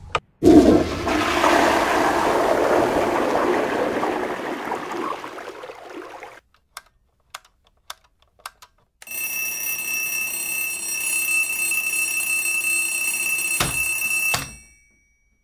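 A rushing noise that fades away over about six seconds. A few faint clicks follow. Then a steady chord of held high tones sounds for about five seconds and stops suddenly near the end.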